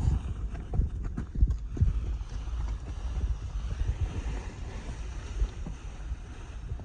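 Wind buffeting the microphone in gusts, with a few brief knocks about one to two seconds in.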